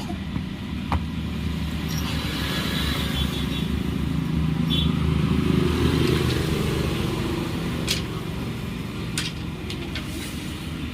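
Low hum of a motor vehicle's engine running, swelling through the middle and easing off toward the end, with a few short clicks.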